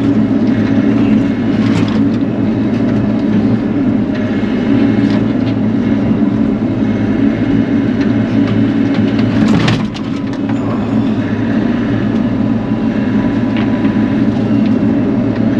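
Bobcat E42 mini excavator's diesel engine running steadily under work, with scattered crackles and one brief louder crackle about nine and a half seconds in.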